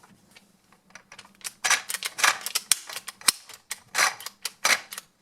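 Hand-turned plastic toy drill driving a plastic screw to fix a toy car's wheel: rapid, irregular plastic clicking and short rattles, starting about a second in.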